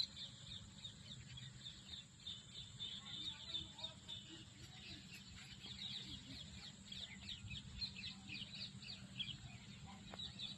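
Faint birds chirping in quick, repeated calls, over a steady high background hum.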